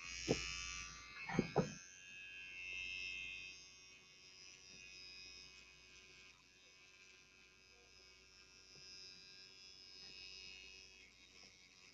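Electric toothbrush running with a steady buzz while it is held to a stuffed toy's mouth, with a few soft handling knocks in the first two seconds.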